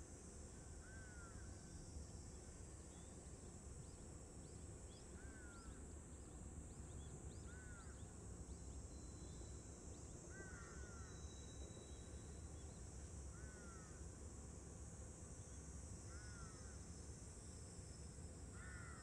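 A bird calling over and over, one short arched call every two to three seconds, over a faint steady high hiss and a low rumble.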